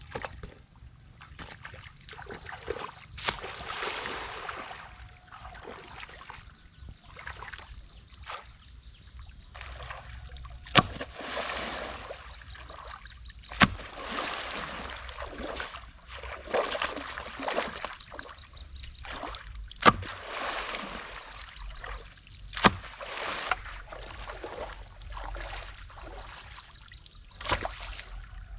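Water splashing and sloshing as a long wooden pole is swept and pushed through a shallow stream, in repeated swishes a second or two long. About five sharp impacts stand out above the splashing, and a faint steady high tone runs underneath.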